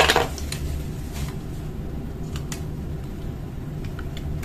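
Hard plastic clicks and clatter from a laser-printer toner cartridge (49A/53A type) being taken apart by hand. There is a loud clatter right at the start as the drum half comes away, then a few light clicks and taps while the green drum is handled. A steady low hum runs underneath.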